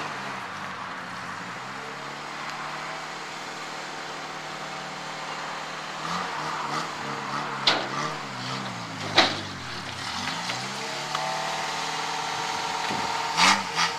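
Car engine running, its pitch falling and rising as it revs and passes, with a few sharp clicks or knocks in the second half.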